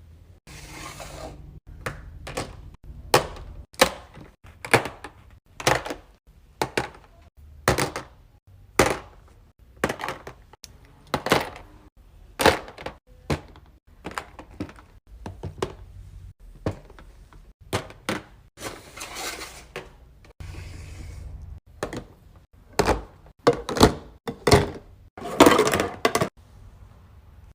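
Plastic fidget toys being handled: a long string of sharp clicks, snaps and knocks, about one or two a second, with a few longer rattling stretches.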